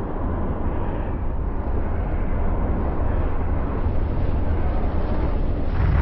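Deep, steady rumble of the Soufrière Hills volcano's eruption and pyroclastic flow, growing slowly louder and swelling near the end.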